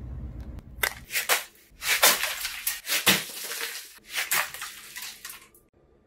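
A Nature Valley crunchy granola bar crunching and breaking apart as it is bitten, a quick series of loud, crackly crunches that stops suddenly.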